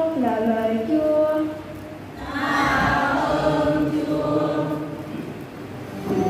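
Voices chanting a short sung liturgical response: one voice first, then a group of voices joining about two seconds in. An organ chord starts right at the end.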